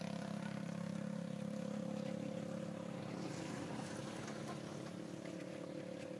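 A steady engine drone that holds an even pitch and slowly grows quieter.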